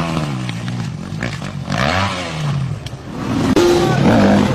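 Dirt bike engine revving up and down in bursts. The sound changes abruptly about three and a half seconds in and becomes louder.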